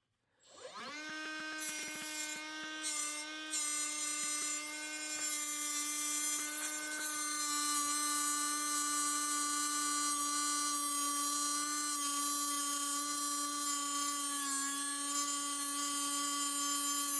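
Electric grinder spinning up about half a second in, then running steadily at a high pitch while it grinds flats onto a steel winch shaft, with a loud hiss from the grinding.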